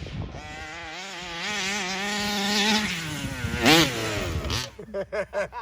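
Two-stroke engine of a gas-powered 1/5-scale Rovan RC car running, its pitch wavering as it drives. It gives one sharp rev up and back down just past halfway, and then drops away about a second before the end.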